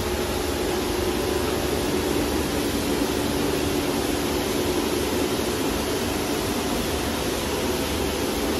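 Christ Vitesse C160 rollover car wash running: a steady hiss of spraying water over a steady machine hum.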